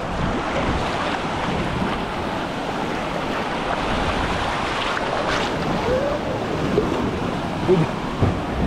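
Sea waves surging and breaking against rocks, with wind buffeting the microphone.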